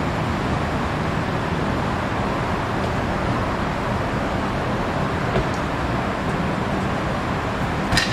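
Steady street traffic noise from passing cars, with one short sharp click near the end.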